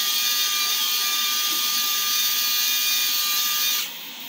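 Small electric motor driving the pistons of a 1/10-scale RC forestry tractor model, running with a steady high-pitched whine that cuts off suddenly near the end.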